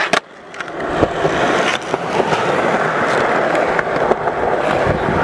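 Skateboard wheels rolling over concrete with a steady rolling noise. There is a sharp clack of the board at the very start and a couple of lighter clacks in the first two seconds.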